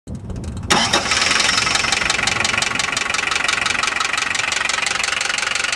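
Daihatsu DL52 four-cylinder turbo diesel engine running, with a fast, even knock throughout. It jumps suddenly in level a little under a second in. The knock is the sign of failing big end and main bearings, which the owner finds breaking up, with metal particles in the oil.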